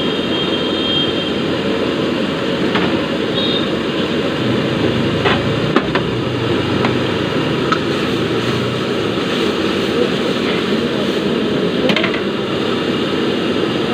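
A steady roar with scattered clicks and knocks, the ambience of a roadside street-food stall beside a busy street.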